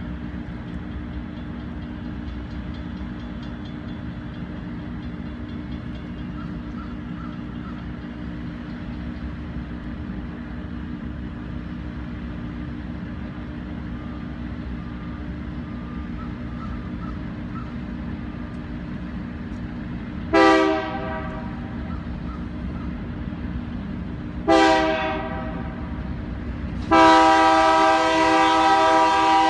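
Diesel freight locomotive's air horn sounding for a level crossing: two short blasts about four seconds apart, then a long blast near the end, over a steady low rumble of the approaching train.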